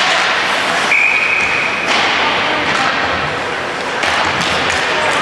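Ice hockey rink sound: a steady wash of game noise with a few knocks, and a referee's whistle blown once for about a second, about a second in.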